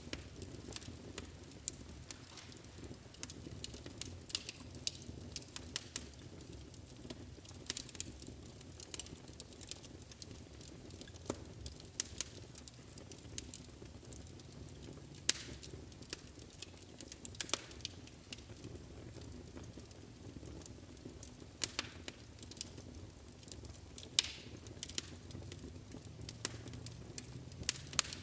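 Wood fire burning in a fireplace: a steady low rumble of flames with irregular crackles and sharp pops, a few of them louder.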